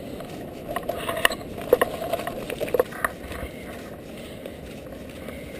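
Bicycle rolling downhill on a wet, stone-strewn mountain road: steady tyre and wind noise, with a run of sharp clicks and rattles from about one to three seconds in as the bike and its gear jolt over the scattered stones.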